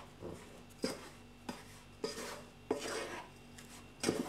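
Wooden spatula stirring a crumbly, dry ground masala stuffing in a saucepan: a gritty scraping with several sharp scrapes or knocks against the pan at irregular intervals.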